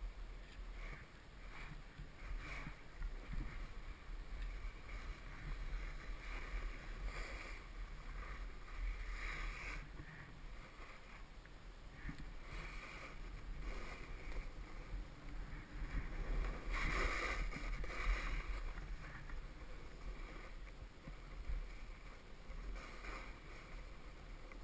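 Snowboard sliding and scraping over hard-packed, tracked snow on a steady downhill run, the hiss swelling and easing with each turn, with a louder scrape about 17 seconds in. A low wind rumble on the microphone sits underneath.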